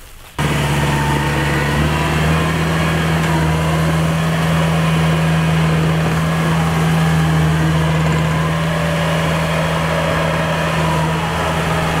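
Combine harvester's engine running steadily with a strong even hum; it cuts in abruptly about half a second in.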